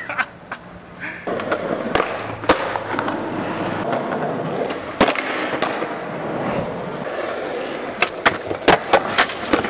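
Skateboard wheels rolling over concrete, broken by sharp clacks of the board hitting the ground, with a quick run of clacks near the end.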